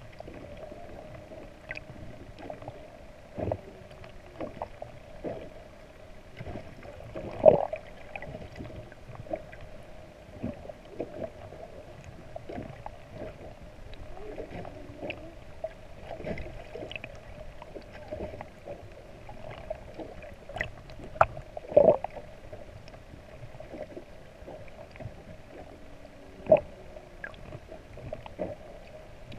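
Underwater sound near a humpback whale: a steady hum with faint, low gliding moans like distant humpback whale song, scattered small clicks, and a few louder knocks, the loudest about a quarter of the way in and two more in the last third.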